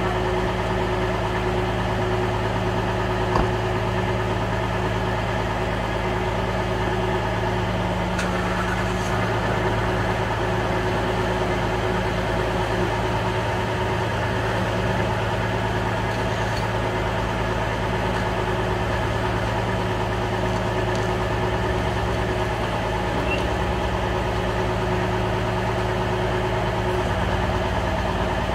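Medium-duty tow truck's engine idling steadily during a winch-out of a stuck box truck, with a single short click about three seconds in.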